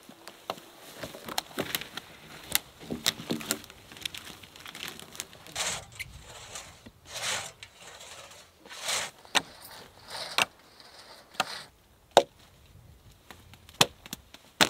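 Dry deadfall wood being handled and worked: a run of sharp knocks and cracks of logs and branches, with a few short scraping strokes in the middle and the loudest single knocks near the end.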